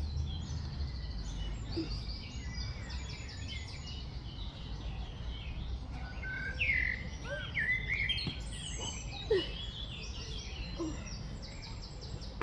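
Wild birds singing and chirping together: quick runs of repeated high chirps and several sweeping whistled notes, over a steady low background rumble.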